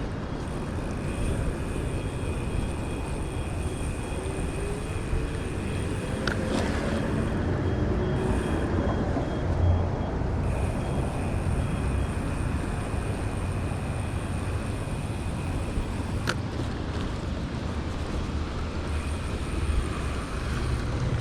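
Steady low rumble of wind and road noise from riding a bicycle, with two brief clicks.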